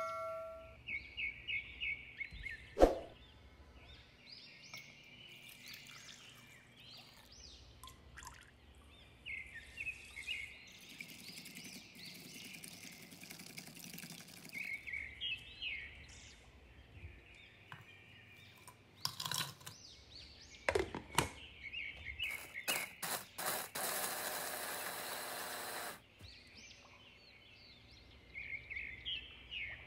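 Birds chirping in short repeated series, with a few sharp kitchen clicks, and a steady grinding noise lasting about two seconds near the end that cuts off suddenly: a small electric chopper crushing biscuits.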